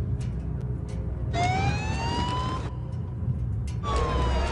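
Emergency vehicle siren wailing: one slow sweep rising in pitch that breaks off abruptly, then a second sweep falling in pitch near the end, over a steady low rumble.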